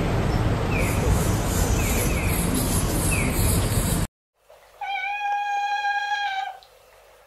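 City street traffic noise with faint, repeated short chirps, cut off abruptly about four seconds in. After a brief silence, a single steady, level-pitched tone with overtones sounds for under two seconds.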